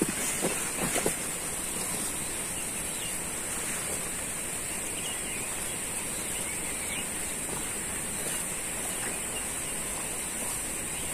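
Steady outdoor forest ambience with a constant high hiss, a few footfalls or knocks on the trail in the first second, and faint bird chirps in the middle.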